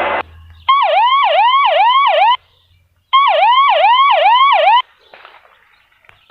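An emergency vehicle's electronic siren sounding in a fast repeating wail, about two and a half pitch sweeps a second, in two bursts of nearly two seconds each with a short break between.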